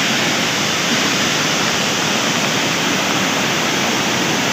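Muddy runoff from heavy rain pouring down a steep earth-and-rock bank into a drain in spate, a steady rush of water.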